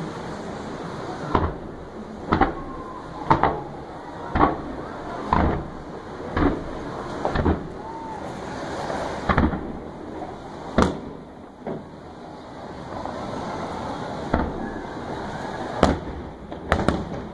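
Fireworks display: sharp bangs of shells launching and bursting, about one a second for much of the stretch, with a quick cluster of bangs near the end, over a steady background noise.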